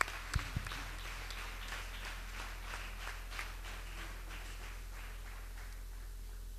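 Scattered hand clapping from an audience, thinning out over several seconds, over a steady low electrical hum.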